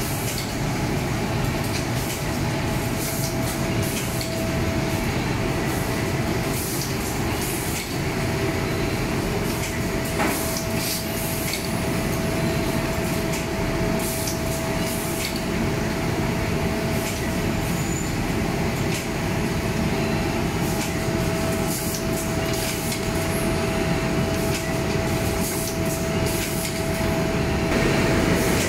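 HELIOT Socksteam-MIDI sock boarding machine running: a steady mechanical din with a constant whine, broken by scattered short hisses and clicks.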